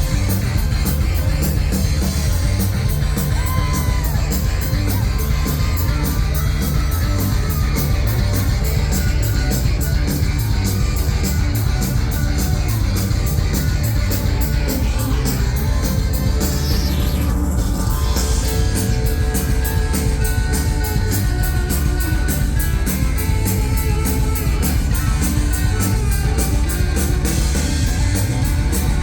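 Live rock band playing loud, with heavy bass and driving drums under a fast, steady cymbal beat.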